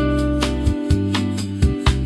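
Bossa nova instrumental music: plucked guitar notes over a steady bass line, with light percussion hits at a regular beat.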